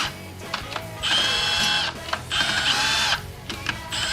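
Cordless power tool's motor whining in two bursts of about a second each, the pitch bending as it spins up and slows, while trying to back a torqued head bolt out of the engine block.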